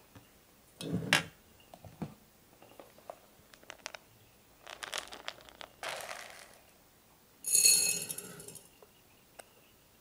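Small hard pellets being handled and poured: clicks and rustles of a plastic tub and scoop, a scoop rattling through the granules, then a loud clatter of pellets dropping into a glass jar, ringing the glass about seven and a half seconds in.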